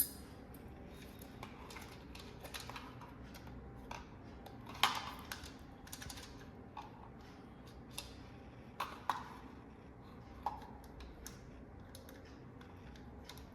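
Scattered light clicks and taps at irregular intervals, a couple of them sharper, like small hard objects being handled.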